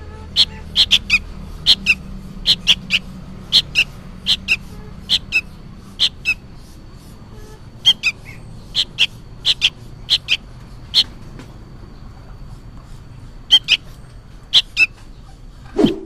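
Sooty-headed bulbul (kutilang) chick begging for food: short, sharp high chirps repeated over and over in quick pairs and threes, with a pause of about two seconds near the end.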